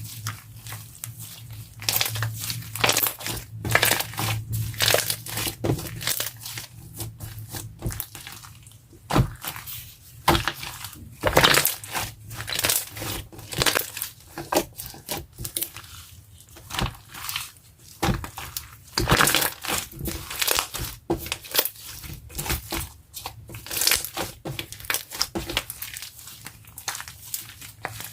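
Crunchy popcorn slime being squeezed and pressed by hand, giving irregular bursts of crackling and crunching pops.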